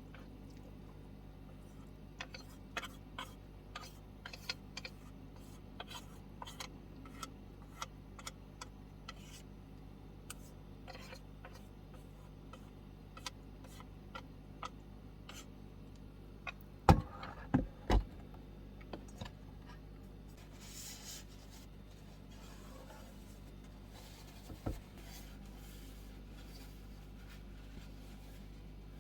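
Scattered light clicks and taps of objects being handled, with louder knocks about 17 and 18 seconds in and again near 25 seconds, over a steady low hum.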